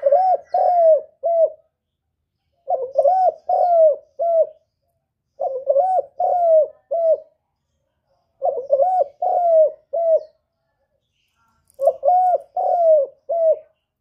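Spotted dove cooing: five repeated phrases of three or four low coos each, a couple of seconds apart.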